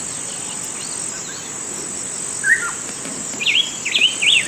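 Steady high-pitched drone of insects, with birds calling over it: one call about two and a half seconds in, then a bird singing a quick run of sweeping up-and-down notes near the end.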